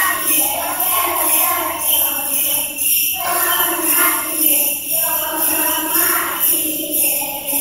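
Group of young children singing a French song in phrases, with jingle bells shaking in a steady rhythm throughout.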